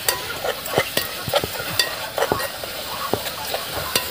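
Food frying and sizzling in a small pot over an open wood fire while it is stirred, the spoon knocking and scraping against the pot in short, irregular strokes over a steady hiss.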